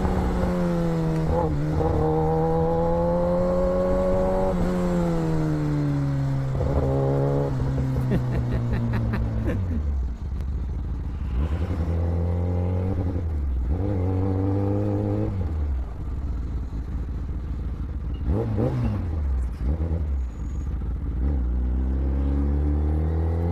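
Kawasaki ZX-10R's inline-four engine heard from the rider's seat while riding. The revs sink from a mid-range note to a low rumble about halfway, with several short throttle blips, and climb again near the end.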